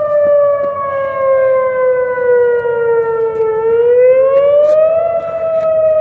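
Whelen 2810 outdoor warning siren sounding its wail tone: one steady pitched tone that falls slowly for about three and a half seconds, rises over about a second and a half, then starts falling again.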